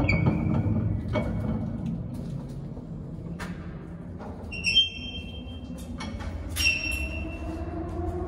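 Background music ends in the first second. Then comes the steady low rumble of a metro train, with clicks and two short high-pitched squeals, and near the end a rising electric motor whine as the train accelerates.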